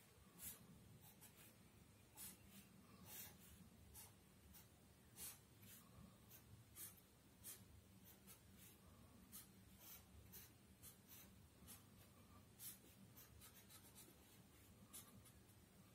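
Faint pen strokes scratching on paper while a circuit diagram is drawn: short, irregular scrapes, a few a second, some a little louder than others.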